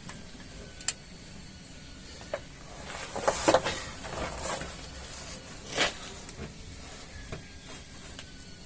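Workshop handling noise while a long wrench is fitted and pulled on a GAZelle rear-axle pinion nut: a few sharp metal clicks and several short noisy rushes.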